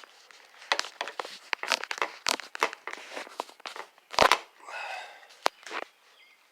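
Close handling noise: a run of sharp clicks and crinkly rustling, with one louder knock about four seconds in.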